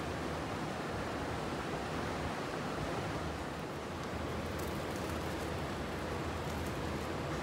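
Steady rushing background noise of an underground railway platform, with a low hum beneath it.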